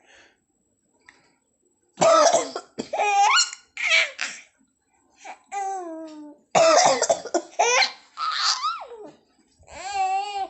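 Someone coughing in short bursts, with a five-month-old baby laughing heartily in between.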